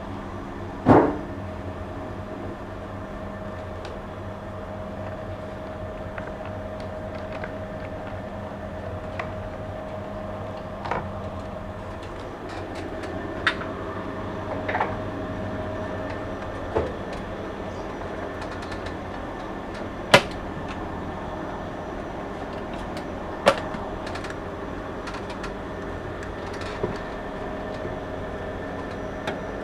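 A steady machine hum with a faint held tone, broken by scattered sharp knocks and clicks of metal being handled, about eight in all; the loudest come about a second in and about twenty seconds in.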